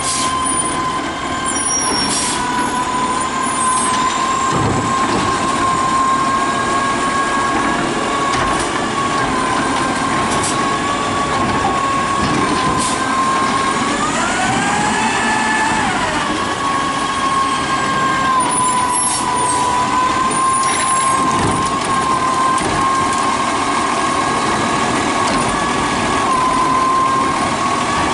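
2010 DaDee Scorpion side-loading garbage truck running as it drives up, with a steady high whine that rises in pitch for about two seconds near the middle and then settles back.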